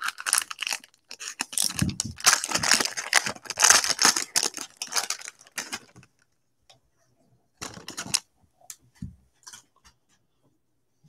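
Wrapper of a Donruss football card pack crinkling and tearing as it is ripped open, for about six seconds. Then a few light clicks and taps as the cards are handled and set down on a stack.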